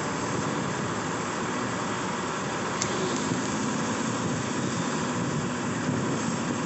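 CAT 320 excavator's four-cylinder turbocharged diesel engine running steadily, an even mechanical drone.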